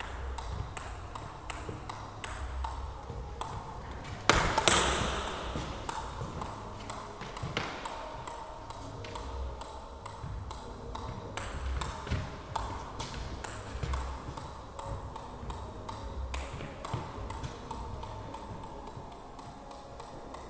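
A table tennis ball bouncing again and again on the rubber of a bat in a keep-up, a steady run of light ticks about two a second. One much louder, sharper knock rings out about four seconds in.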